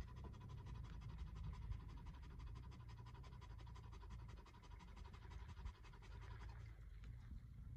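Faint, distant engine of a small 4x4 SUV crawling slowly up a rocky trail: a low rumble with a thin steady whine and rapid even ticking that stop about six and a half seconds in.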